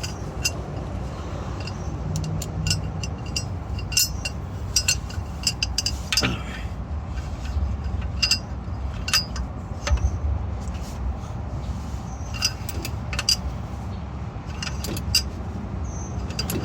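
Irregular metallic clicks and clinks of hand tools, a socket wrench and bar being worked to tighten a fastener under the car. A steady low rumble runs underneath.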